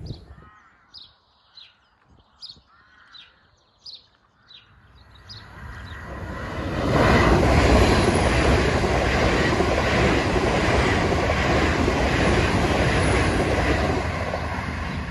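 GWR passenger train passing at speed: a rushing noise builds from about five seconds in and stays loud and steady as the coaches go by.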